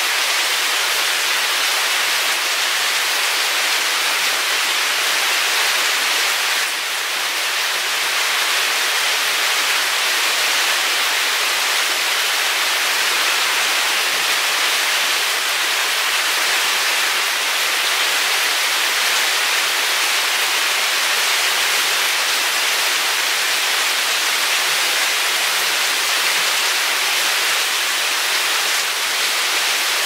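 Steady rain falling, a loud, dense, even hiss with no let-up.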